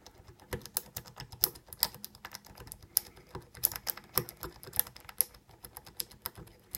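A lock pick rocked in the keyway of an old 30mm Bell padlock, its pin tumblers giving quick, irregular metallic clicks, several a second.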